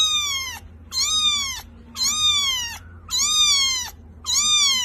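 Young kitten mewing: five short, high-pitched mews about a second apart, each dropping in pitch toward its end.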